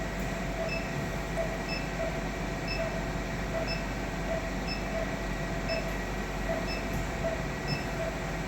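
Steady hum of operating-theatre equipment with faint short electronic beeps repeating about once a second.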